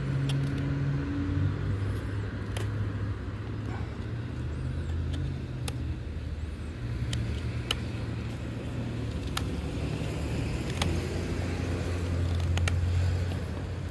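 Car engines running on a nearby street, a steady low hum that shifts in pitch now and then. Scattered sharp clicks over it, from a knife blade cutting into oak.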